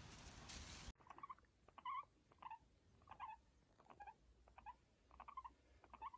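Guinea pigs making short, soft squeaks, about two a second, each a brief pitched call that bends down at the end. Before them, a second of hissy outdoor noise cuts off abruptly.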